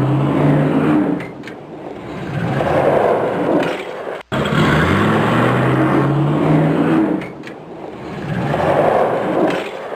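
Nissan GT-R R35's twin-turbo V6 accelerating hard from a launch, the engine note rising and stepping up through gear changes, then easing off into a rushing swell. A brief cut about four seconds in, then the same run again.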